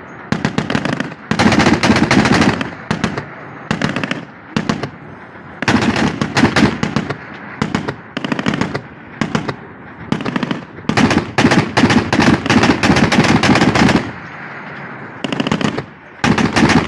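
Anti-aircraft gun firing in repeated bursts of rapid shots, some brief and some running two to three seconds, with short pauses between them.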